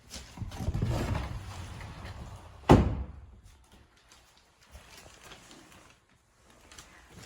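A door rolling along and then shutting with one sharp knock, followed by a few faint knocks.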